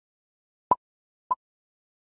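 Two short, sharp click sound effects, about half a second apart, marking the taps on the like and subscribe buttons of an on-screen phone animation.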